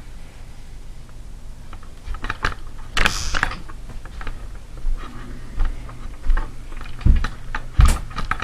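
Scattered light clicks and taps, with a short breathy hiss about three seconds in and two dull thumps near the end.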